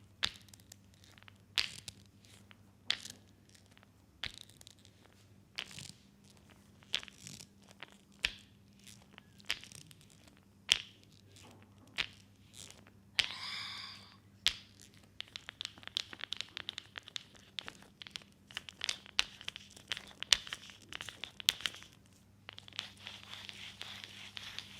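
Hands massaging a leg slick with hot oil: sharp slaps about every second and a half, then a brief squeak, then a long run of fast wet clicking and rubbing.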